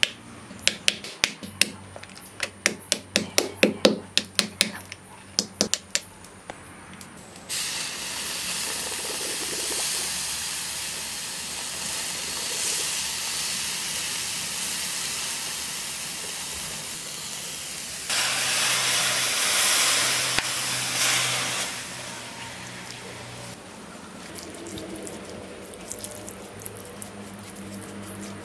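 Sand-casting a lead motorcycle: a quick run of sharp wooden knocks as the model is tapped into the sand, then a long steady hiss as molten lead is poured into the sand mould, which swells louder for a few seconds about eighteen seconds in. Light scratchy ticks follow near the end as the fresh lead casting is brushed clean of sand.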